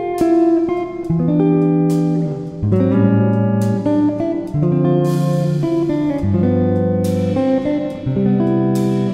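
Background music: a guitar playing a chord progression, with a strummed chord every couple of seconds.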